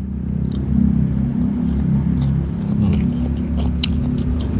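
An engine running steadily, a low hum of several pitched lines that wavers slightly in pitch, with light clicks and smacks of eating by hand over it.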